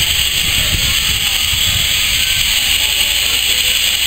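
Small steam tank locomotive running slowly, with a steady hiss of steam over a low rumble.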